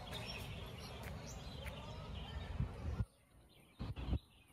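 Outdoor background noise with small birds chirping and a few faint clicks. About three seconds in, the sound drops abruptly to near quiet, broken by a brief low rumble shortly before the end.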